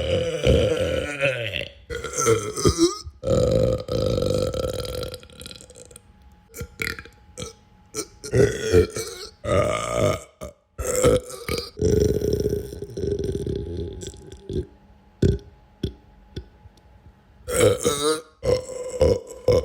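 Human belches one after another, some drawn out for a second or two and others short, with brief pauses between them.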